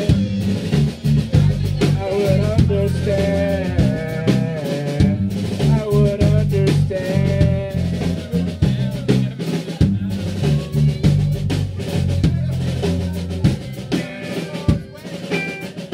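Live rock band playing loudly: a drum kit pounding over guitar and a heavy low end.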